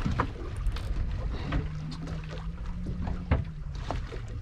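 Steady low rumble of wind and water around a boat at sea, with a low hum for a second or two in the middle and a few short knocks.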